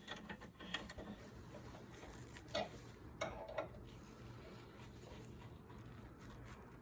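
Faint, scattered clicks and light knocks of metal parts and hand tools being handled during a sway bar end link fitting, over a low steady hum.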